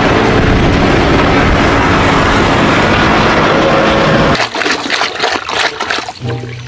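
Water running and splashing steadily, as toys are washed under a stream. About four seconds in it cuts off suddenly, followed by clicks and short tones.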